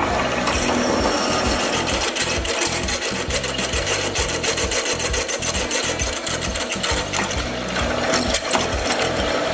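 Drill press running and cutting into a metal bar held in a machine vise, the bit throwing off curled metal chips. A fast, steady chattering scrape of cutting starts about half a second in and eases near the end.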